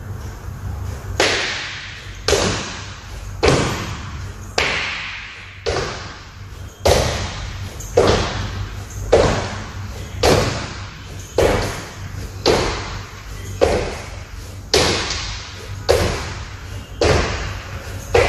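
Sneakered feet landing on a wooden floor during squat jumps: a thud about once a second, each followed by echo from a large hall.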